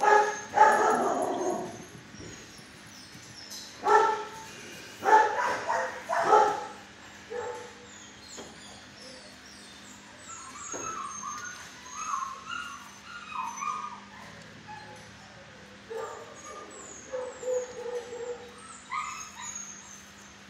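Dog barking: loud barks in the first couple of seconds and a burst of several more about four to six seconds in, followed by softer whining and yipping calls.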